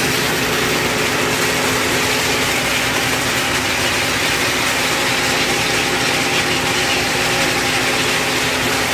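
Shipboard machinery running with a steady hum, over the continuous rushing hiss of a stream of small fish and water pouring from a fish pump outlet into a heaped hold.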